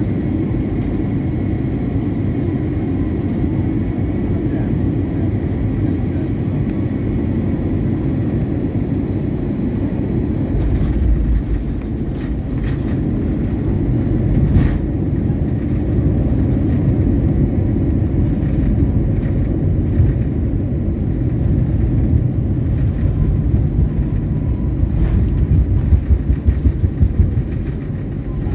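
Steady low rumble in an airliner cabin as the plane rolls on the ground, with a faint steady whine. A few sharp knocks come about halfway through, and a run of quick bumps near the end.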